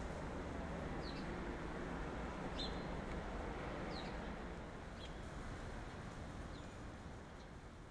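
Outdoor ambience: a steady background rush with short, high bird chirps about once a second, slowly fading toward the end.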